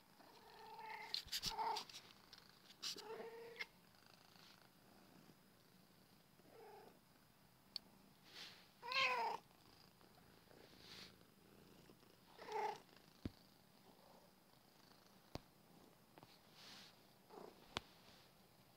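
A small black-and-white domestic cat purring, with several short calls that bend up and down in pitch, the loudest about nine seconds in, and a few sharp clicks in the second half.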